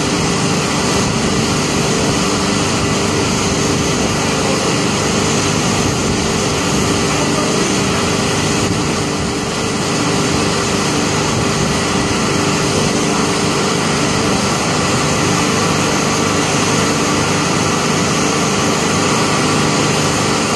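Loud, steady din of small petrol engines, lawnmowers among them, running at full throttle without a break, over a dense hiss.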